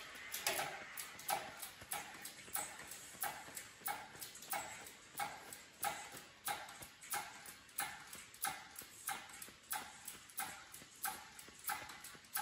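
Hydraulic engine hoist being pumped by hand: a sharp clack with each stroke of the pump handle, regular at about three every two seconds, as the hoist raises an engine.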